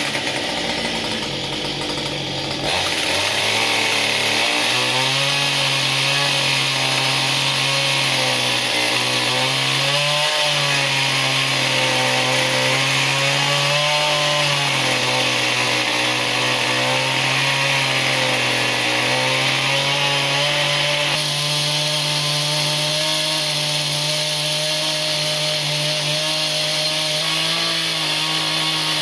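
Husqvarna chainsaw running at high throttle with its chain cutting into a wooden log turning on a lathe. The engine pitch wavers and dips briefly under load a few times.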